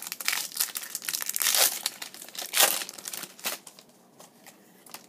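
Plastic wrapper of a 2015 Bowman football card pack being torn open and crinkled: a run of crackling rustles, loudest about two and a half seconds in and dying away after about three and a half seconds.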